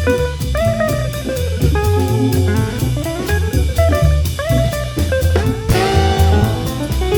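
Background music: an upbeat jazzy band track with guitar and drum kit keeping a steady beat.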